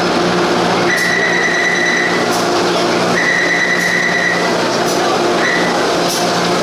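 A Taipei Metro train moving along the platform, a steady rumble of wheels and running gear with a low hum. A high squeal sounds from about a second in, again from about three seconds for over a second, and briefly near the end.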